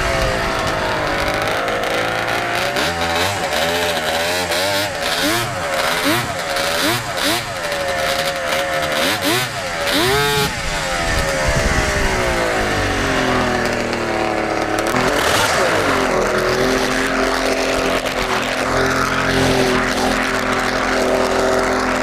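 Vintage Ski-Doo snowmobile's two-stroke engine under way, revving up and down with the throttle. It climbs to its highest rev about ten seconds in, falls away over the next few seconds, then settles to a steady lower run for the last several seconds.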